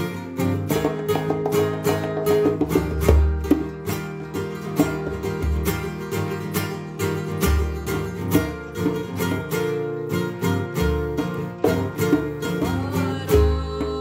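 Acoustic guitar (viola) strummed in a steady rhythm, repeating chords with a deep low thump about every two seconds.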